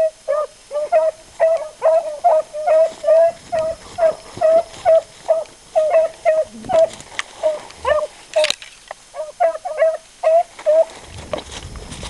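A beagle baying on a rabbit's track: a long run of short, sharp barks, about three a second, that stops about eleven seconds in. One sharp click sounds about eight and a half seconds in.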